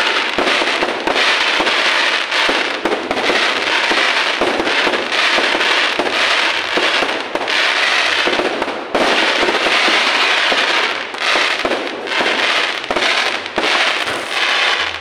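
Fireworks display going off close overhead: a loud, dense, nearly continuous crackling and popping of bursting shells, with a few brief lulls.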